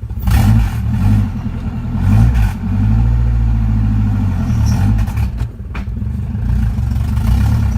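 Honda K-series four-cylinder engine, turbocharged, running loudly with the revs rising and falling, and a steadier stretch in the middle.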